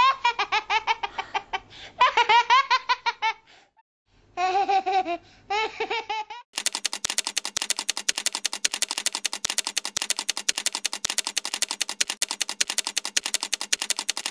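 A young child laughing in quick repeated bursts. About six and a half seconds in this gives way to a fast, even run of clicks that goes on to the end.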